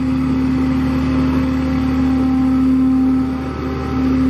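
Flatbed tow truck's engine running steadily at idle, a low drone with a steady pitched hum over it.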